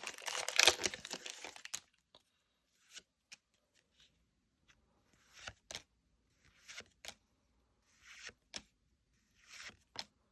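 Foil booster-pack wrapper crinkling and tearing for about the first two seconds, then trading cards being slid one by one off the stack, a soft swish and a light click about every second and a half.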